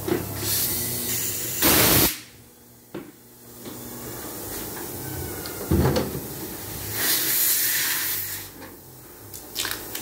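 Wheel balancer in use: a loud hissing rush from the spinning wheel under the hood that cuts off sharply about two seconds in, over a low steady hum. A clunk near the middle as the hood guard is raised, and a second hissing rush a little later.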